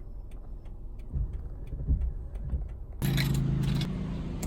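A motor vehicle's engine: a steady low hum with the hiss of road noise that comes in abruptly about three seconds in, over a low background rumble with faint ticks.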